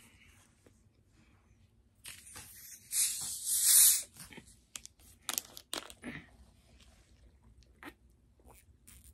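Screw cap twisted off a plastic drink bottle, with a loud hiss starting about two seconds in and lasting about two seconds, followed by scattered sharp clicks of bottle handling and drinking.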